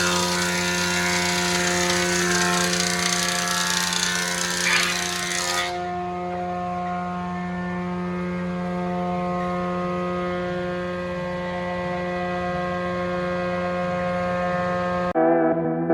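Frommia combination planer-thicknesser running with a steady hum, cutting a board with a loud hiss for about the first six seconds, then running free with no wood in it. Music comes in near the end.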